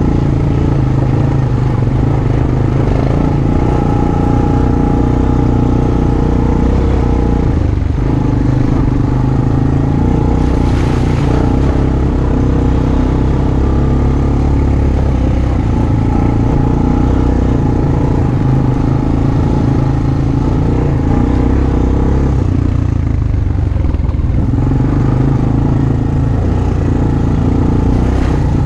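Single-cylinder Honda ATV engine running under way on a trail, the throttle varying; the engine note dips briefly about eight seconds in and again a little past twenty seconds.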